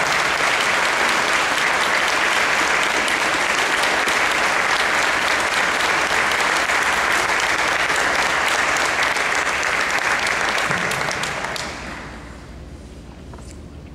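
Audience applauding, steady dense clapping that dies away about twelve seconds in.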